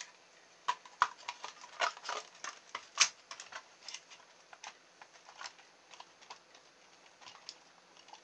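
Light plastic clicks and knocks from handling a toy RC car's hollow plastic body shell and chassis, irregular and scattered, with two sharper knocks about one and three seconds in.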